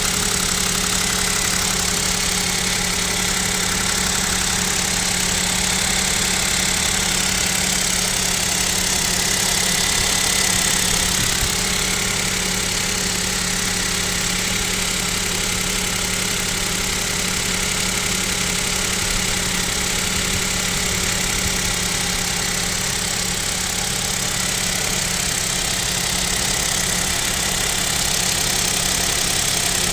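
Kia Picanto's 1.0-litre G3LA three-cylinder petrol engine idling steadily while cold, at about −7 °C, with a knock that the owner puts down to the piston group and fears may mean an overhaul is due.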